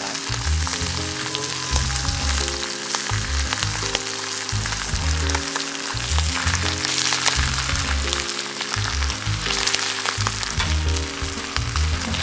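Fatty sirloin steak sizzling and spitting on a hot rock-salt plate, a steady hiss with scattered small crackles, over background music with a bass line.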